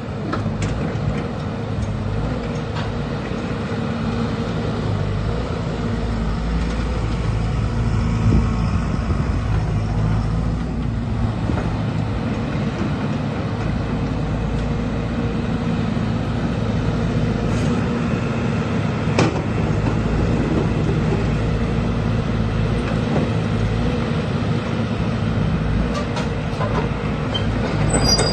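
JCB JS130 tracked excavator's diesel engine running steadily.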